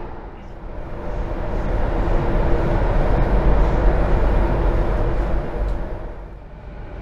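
Rumble of a CAF-built Delhi Airport Express metro train running on its track, heard from inside the passenger carriage. It swells through the middle and eases off near the end.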